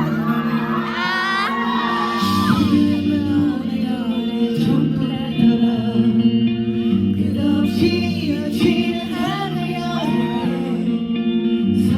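Live music with singing played through a hall's sound system: held chords under a sung melody line.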